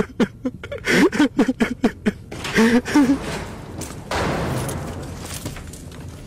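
A man groaning and crying out in short, strained bursts without words. About four seconds in, a sudden swell of noise starts and slowly fades.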